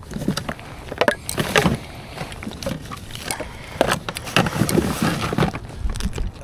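Irregular knocks, clunks and rustling of gear being handled, a dozen or so uneven hits.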